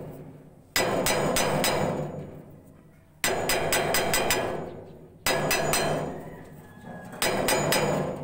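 Key being hammered into the keyway of a bagger mixer's belt pulley hub: four bursts of quick metal-on-metal hammer blows, each dying away in a ringing from the pulley.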